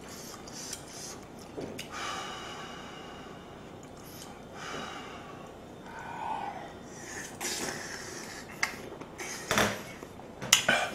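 Close-up eating sounds: a man chewing a mouthful of stew and breathing noisily through his nose, with a few sharp clicks near the end.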